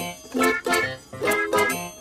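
Background music: plucked string instruments, banjo-like and guitar, picking a quick, bouncy tune.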